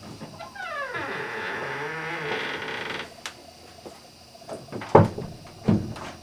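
Wooden door creaking on its hinges as it swings open, a long wavering creak of about two and a half seconds. It is followed by a sharp click and a few knocks and thumps, the loudest about five seconds in.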